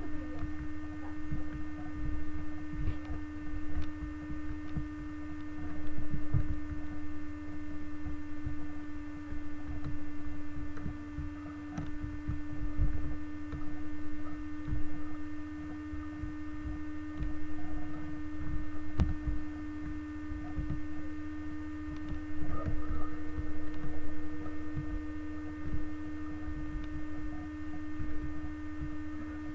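Steady electrical hum with several fixed tones, over irregular low rumbling and scattered knocks.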